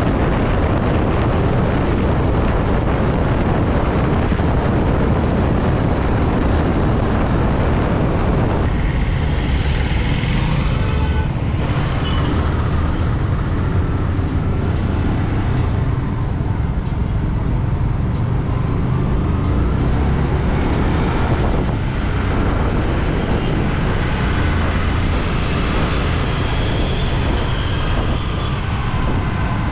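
Wind rushing over the microphone of a moving motorcycle, with the bike's engine and surrounding road traffic underneath. The wind noise drops off about nine seconds in, leaving the engine and traffic more audible.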